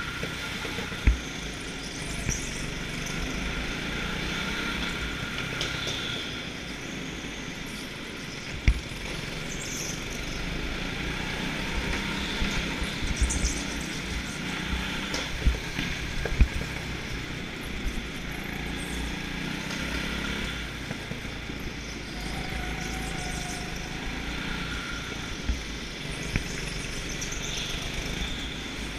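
Go-kart engine running steadily through a lap, heard from the kart itself, with rushing wind noise on the microphone and several sharp knocks as the kart is jolted.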